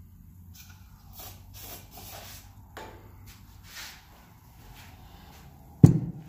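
Several short hissing squirts from an aerosol can of silicone lubricant, then a single sharp knock near the end.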